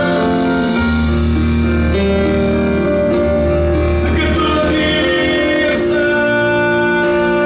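Live worship music: a slow instrumental passage of sustained chords that change every second or two.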